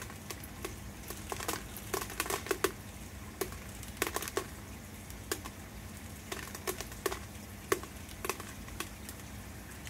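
Scattered light crinkles and clicks of something being handled at irregular intervals, over a faint steady low hum.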